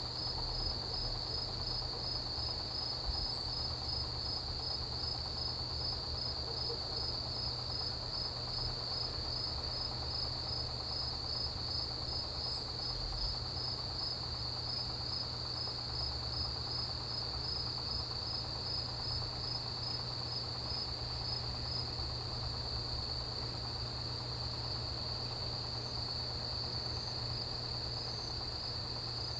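Autumn grass insects, crickets among them, calling in a steady chorus. One continuous high trill runs throughout, with a higher, rapidly pulsing chirping above it and a steady low hum beneath.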